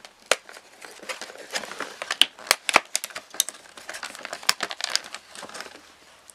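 Cardboard chocolate advent calendar door being torn open and its thin plastic chocolate tray pulled out: a run of irregular crinkling and crackling that dies down near the end.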